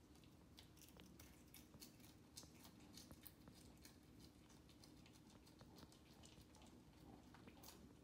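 Faint crunching and crackling of a cicada's shell as a cat chews it: a rapid run of small crackles over the first few seconds, then only an odd click, over a faint low hum.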